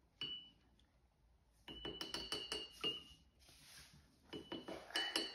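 Paintbrush rinsed in a ceramic mug of water, clinking against the mug's inside with a short ringing tone. One clink comes near the start, then two runs of quick taps, several a second.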